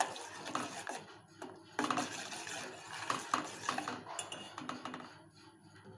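Steel spoon stirring and scraping around a stainless steel pot of thick milk, clinking against the sides, as jaggery is stirred in until it melts. The stirring pauses briefly about a second in and dies down near the end.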